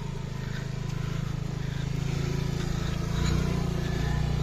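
A motor scooter's small engine running under load as it climbs a steep, muddy slope while being pushed. It is a steady hum that gets louder about three seconds in.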